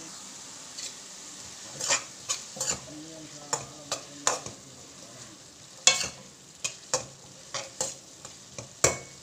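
Metal spoon scraping and knocking against an aluminium kadai as chopped onions and shallots are stirred in hot coconut oil, over a steady sizzle. The stirring strokes come irregularly from about two seconds in.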